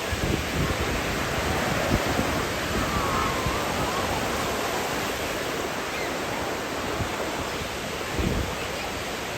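Ocean surf washing onto the beach in a steady rush of waves, with low gusts of wind rumbling on the microphone now and then.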